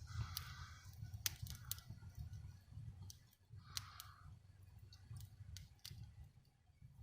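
Fire burning in a fireplace, crackling with scattered sharp pops over a low steady rumble, with a brief hiss near the start and another about four seconds in.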